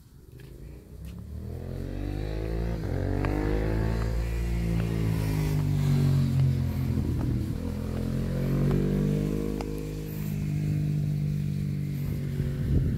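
A motor vehicle engine running nearby and growing louder over the first few seconds; its pitch rises and falls twice as it changes speed, then holds fairly steady.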